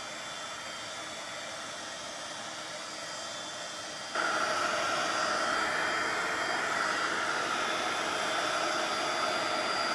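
Handheld craft heat tool running, a steady fan hiss that gets louder about four seconds in as it is moved over the card.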